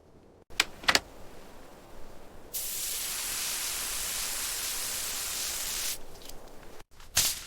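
A steady spray hiss lasting about three and a half seconds, preceded by two sharp clicks and followed near the end by another sharp knock.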